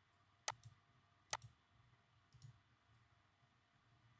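Three short, sharp computer mouse clicks against near silence, the last one fainter.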